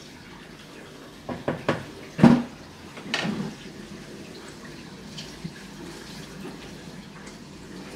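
A wooden spoon knocking against the rim of a stainless steel pot several times, the loudest knock with a short metallic ring, then another clatter about three seconds in as the spoon is set down. A faint steady hiss underneath.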